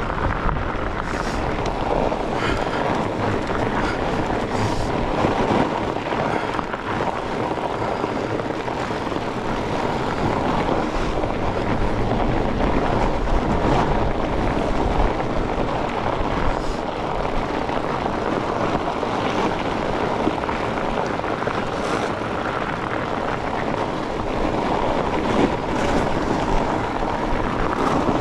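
Steady rushing noise of a fat bike being ridden on a snowy trail: wind on the microphone and the rumble of the wide tyres, with a few brief clicks and rattles from the bike over bumps.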